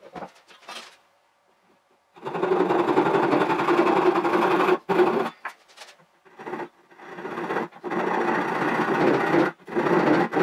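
Japanese handsaw cutting a hardwood rail, the footage sped up so the strokes run together into a fast, even rasping buzz. It starts about two seconds in after a few light knocks and runs in several bursts with short pauses.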